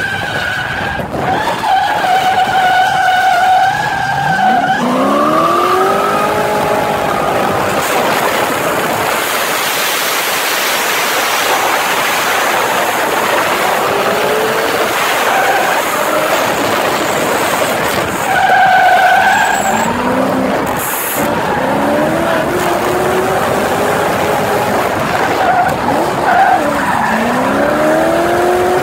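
Drift car at full throttle, its engine revving up in repeated rising sweeps as it goes through the gears, with the tyres squealing as it slides through the corners.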